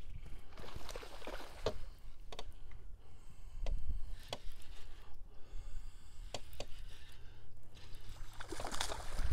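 Water splashing and lapping around a bass boat as a hooked fish is reeled in close. A low rumble sits underneath, with scattered sharp clicks.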